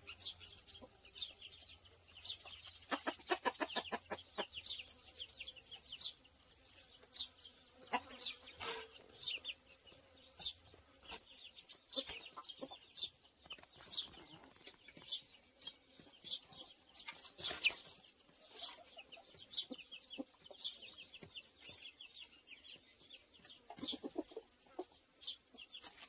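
Small birds chirping in short, high calls that repeat all through, with a chicken clucking in a quick run about three seconds in.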